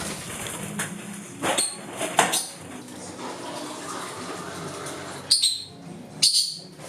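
Hand-feeding formula for a cockatiel chick being prepared: a watery hiss with a few clinks. Two short, high squeaks come near the end, about a second apart.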